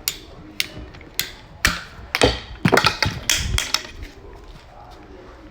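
Husky ratcheting PVC pipe cutter squeezed on a 1/2-inch schedule 40 PVC pipe: sharp ratchet clicks about every half second, then a denser, louder run of clicking and cracking as the blade cuts through the pipe.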